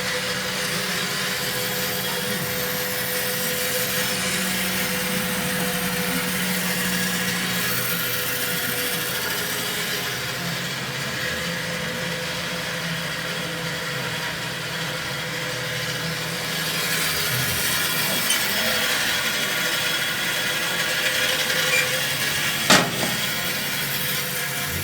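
Powermatic 81 vertical bandsaw running with a steady hum and cutting through wood. A single sharp click near the end.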